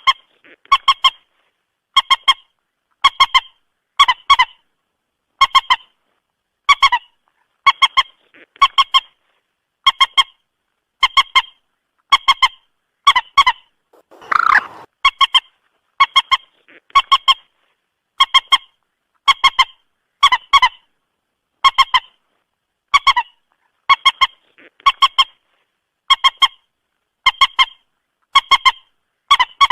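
Moorhen calling over and over: short, clucking notes in twos and threes, about one call every two-thirds of a second, with one longer, rougher call about halfway through.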